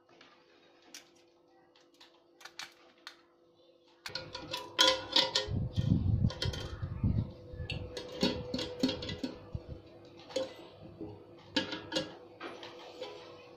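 Square frying pan and its wire-mesh fry basket being handled, starting about four seconds in: repeated sharp clinks and knocks of metal on metal, with some dull handling thumps. Faint steady background music runs underneath.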